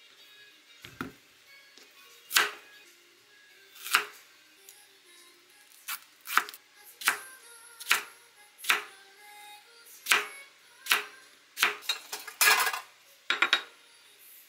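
Chef's knife chopping a Korean zucchini into cubes on a wooden cutting board: separate sharp knocks of the blade hitting the board. They come a couple of seconds apart at first, then about one a second and closer together in the second half.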